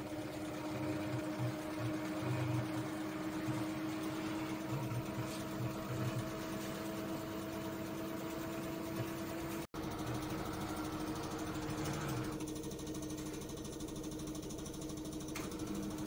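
LG Direct Drive front-loading washing machine running its spin stage: a steady motor hum over a low pulsing rumble from the drum, with no knocking from the PVC balls tumbling with the clothes.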